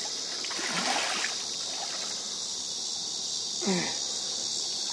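Water splashing and dribbling beside the boat, in a splashy stretch about a second in and a shorter one near the end, over a steady high insect drone.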